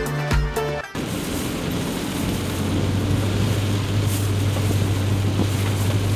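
Background music that cuts off about a second in, followed by a vehicle on the move: a steady low engine drone under road and wind noise.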